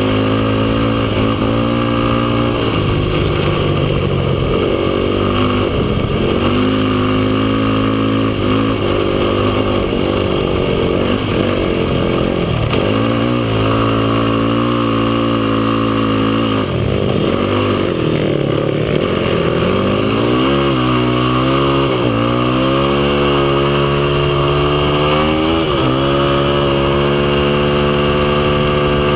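Yamaha YFZ450 sport quad's single-cylinder four-stroke engine running hard on sand, its pitch rising and falling over and over with the throttle, over a steady rushing noise.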